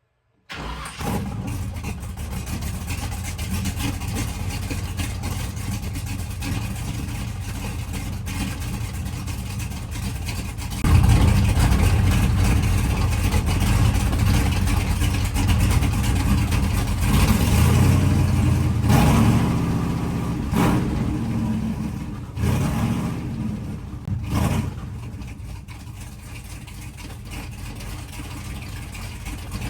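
Big-block Chevy 454 V8 truck engine running. It comes in about half a second in, gets clearly louder about eleven seconds in, and eases off again over the last several seconds.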